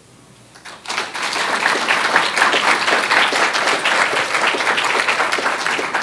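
Audience applauding, starting about a second in.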